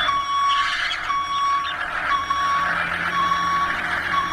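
Reversing alarm beeping steadily, about one high-pitched beep a second, over a rough background noise.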